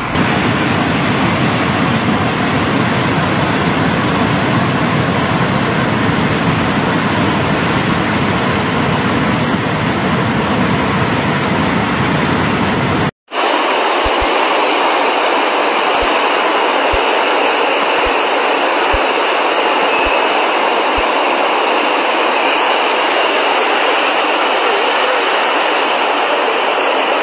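Muddy floodwater rushing down a wadi in spate: a loud, steady roar of fast-flowing water. The sound cuts out for an instant about halfway through, and a few dull low thuds come in the second half.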